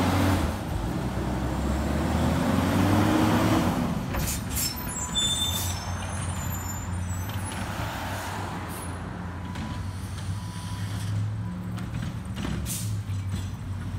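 Engine of a 2009 Autocar ACX/Heil Odyssey CNG garbage truck pulling away and rising in pitch, loudest about three seconds in. The truck then slows with short brake squeals and hisses of its air brakes, and runs on steadily as it stops at the curb, with another air hiss near the end.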